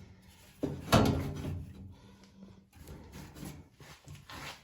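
A new stamped sheet-metal floor pan being shifted into place in an early Ford Bronco's floor: a sharp clunk about a second in, then lighter knocks and scraping of the panel as it is handled.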